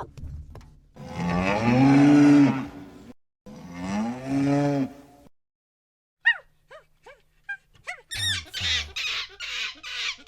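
A cow mooing twice, two long low calls of about two seconds each. After a pause come short, high, falling squeaky chirps, and near the end a high wavering call.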